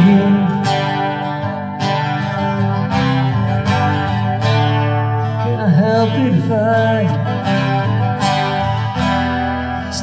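Acoustic guitar strummed steadily through an instrumental passage of a song, with sustained chords and a sliding melodic line near the middle.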